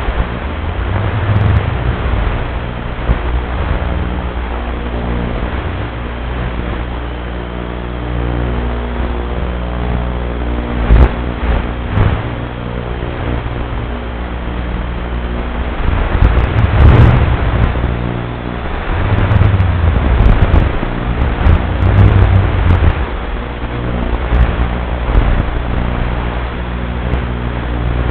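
Steady electrical buzz: an even stack of hum tones over a rough hiss, broken by sharp crackles in the middle.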